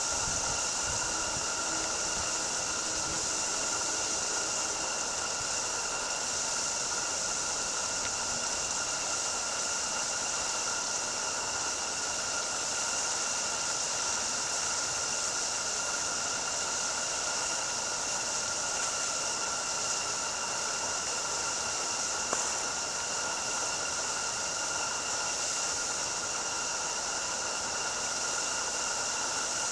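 Roundhouse Katie live-steam garden locomotive standing in steam and hissing steadily, with a thin steady high tone running through the hiss.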